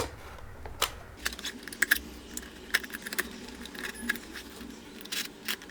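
Hands opening a small parcel: a scattering of short clicks and crinkles as the packaging is handled and pulled open.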